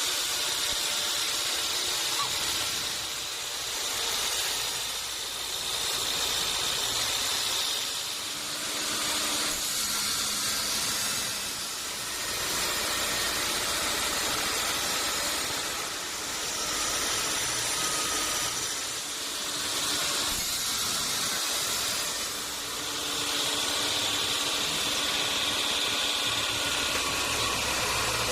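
Sawmill running and cutting through a large log: a steady hissing saw noise with a machine hum beneath, swelling and easing every few seconds.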